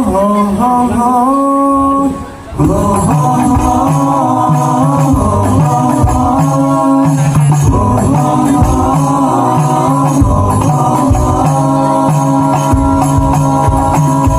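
Hadroh ensemble: a lone voice holds a sung note, then after about two and a half seconds the rebana frame drums come in under the singing with a steady beat.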